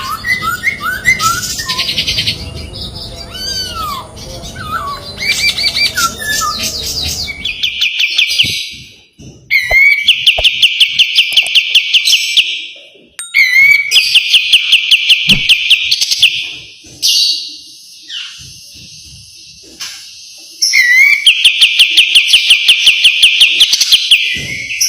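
Kapas tembak songbird singing: varied chirps and whistles at first, then sharp, rapid trills (besetan) in bursts of two to four seconds, repeated four times.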